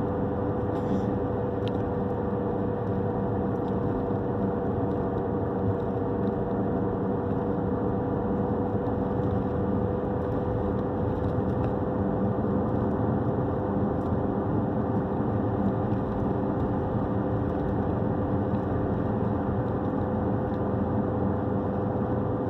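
Steady vehicle engine drone heard from inside the cabin, with a constant mid-pitched hum running through it.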